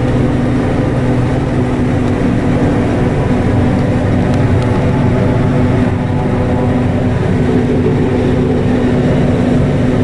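Fendt Katana 65 self-propelled forage harvester running steadily under load as it chops maize, heard from inside the cab: an even, unbroken machine hum.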